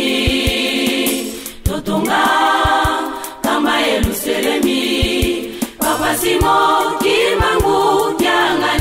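A group of voices singing a hymn together in sung phrases with short breaks between them, with brief low knocks beneath the singing.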